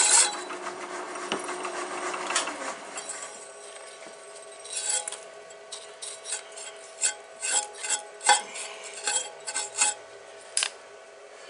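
A carbide-tipped hole saw in a milling machine finishes cutting through 7075 aluminium plate: the cutting noise drops off sharply at the start and fades as the saw spins down. In the second half a brush sweeps aluminium chips off the plate in about a dozen short, sharp scraping strokes, over a faint steady hum.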